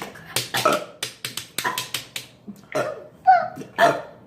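A homemade beat made by people: a quick, uneven run of sharp clicks and smacks mixed with short grunt-like vocal sounds.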